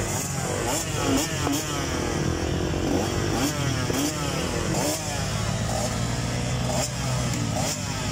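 Several motocross dirt bikes running together at the start line, their riders repeatedly blipping the throttles so that engine notes rise and fall, overlapping.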